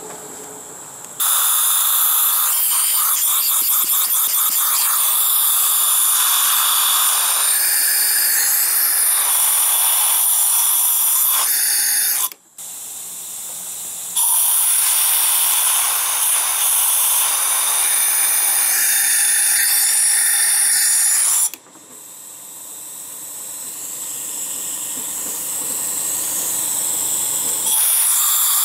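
Compressed air hissing loudly through a Westinghouse rear-of-train air brake valve as its handle is moved out of lap. The hiss starts about a second in, cuts off sharply twice and starts again, then swells slowly before jumping loud again near the end.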